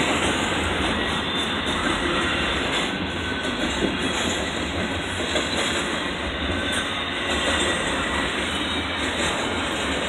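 Double-stack intermodal well cars of a Norfolk Southern freight train rolling past, a steady rumble and clatter of steel wheels on the rails.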